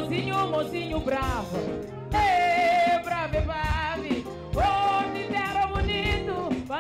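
A singer performing with a live band: long held notes that slide in pitch over a steady beat.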